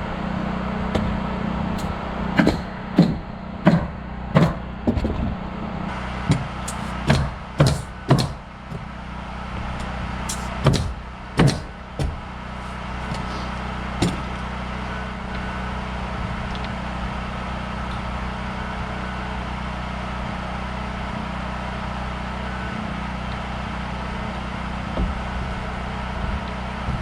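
Roofing nails being driven into asphalt shingles, about fifteen sharp strikes in quick succession over the first half, then they stop. A generator engine hums steadily underneath throughout.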